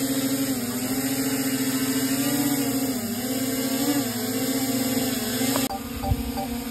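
Small folding camera drone's propellers whining as it lifts off and hovers, the pitch wavering up and down with the throttle. Shortly before the end this gives way to a steadier hum with light, regular ticks.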